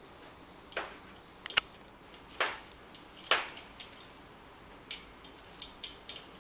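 Irregular sharp clicks and knocks of metal parts being handled and fitted while a stainless steel table is put together with screws, pins and an Allen wrench. The loudest knock comes about halfway through.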